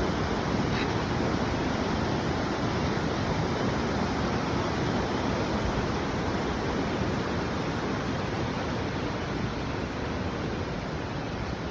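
Steady rushing of a river flowing under a bridge, a constant even noise of moving water, easing off slightly near the end.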